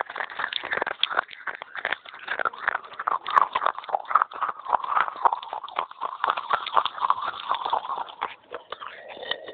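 Rapid, continuous crunching of a person chewing pieces of soft baked clay (terracotta pot) close to the microphone, a dense run of crisp crackles.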